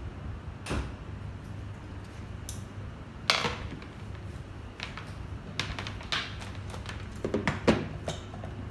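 Scattered clicks and knocks of objects being handled and set down on a tabletop, the sharpest about three seconds in and a quick cluster near the end, over a steady low hum.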